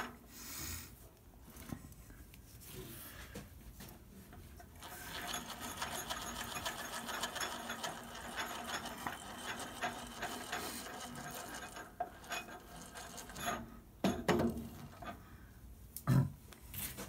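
Brake lathe disk feed gearbox being turned by hand onto the feed screw: metal threads and gears rubbing with a run of fine, rapid ticking, then a couple of louder knocks near the end as it seats against the lathe.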